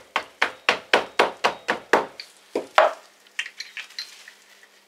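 Rubber mallet tapping a dust seal down into a Honda Deauville NT650 fork slider to seat it fully. A quick, even run of about four taps a second lasts some two seconds, followed by a few slower, lighter taps.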